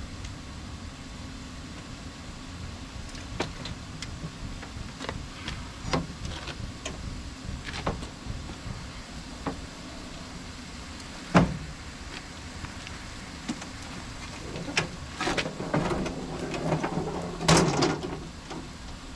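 Scattered knocks and clanks over a steady low rumble. A single loud knock comes about eleven seconds in, and a busier clatter builds near the end.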